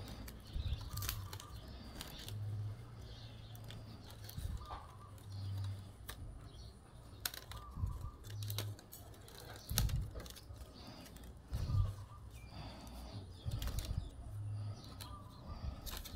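Bamboo strips rustling and clicking as they are handled and woven into a basket, in irregular short snaps and brushes.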